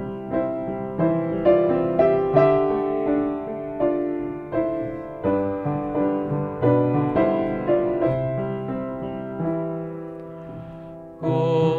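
Piano accompaniment playing the introduction to a children's song, notes struck about twice a second and each dying away, growing softer toward the end.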